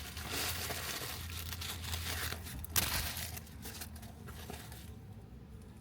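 Rustling and crinkling as a synthetic wig and its packaging are handled, with one sharp crackle about three seconds in, dying down near the end.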